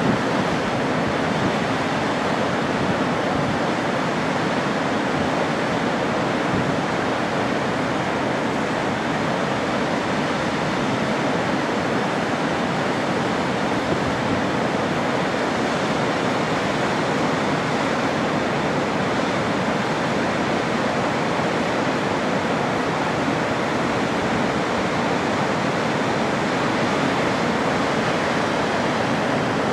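Great Falls of the Passaic River: heavy water falling in a steady, unbroken rush.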